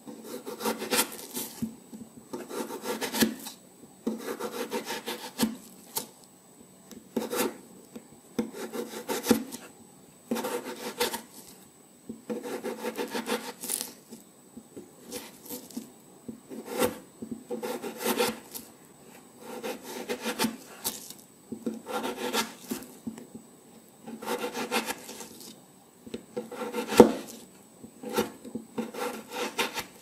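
Kitchen knife slicing a raw potato into thin rounds, one cutting stroke about every second and a half, each a short scrape lasting under a second. There is one sharper click near the end.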